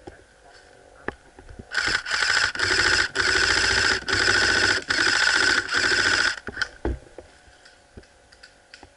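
Gas blowback airsoft rifle firing on full auto: four or five long, rapid rattling bursts close together, starting about two seconds in and stopping about six seconds in.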